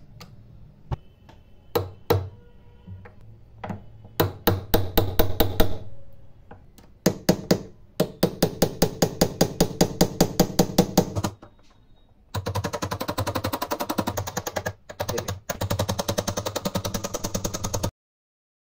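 Metallic tapping of a jeweller's setting tool hammering a gold-plated brass bezel down over a black onyx cabochon. A few scattered taps come first, then runs of about five taps a second, then a fast continuous rattle that stops suddenly near the end, over a low steady hum.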